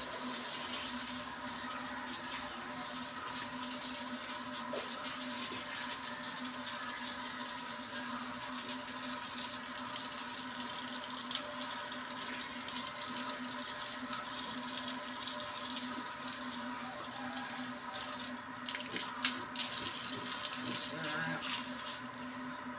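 Water from a garden hose spraying onto a concrete pen floor and splashing over pigs: a steady running hiss, with some irregular splashing and knocking near the end.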